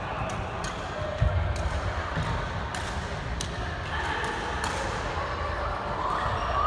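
Badminton rally: a quick string of sharp racket-on-shuttlecock hits about half a second apart, stopping about two-thirds of the way through, with a heavier thud about a second in.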